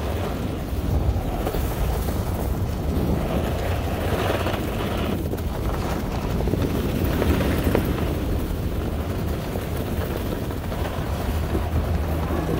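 Wind buffeting the microphone while descending a groomed ski run: a steady low rumble, with the hiss of snow scraping under the rider swelling a couple of times.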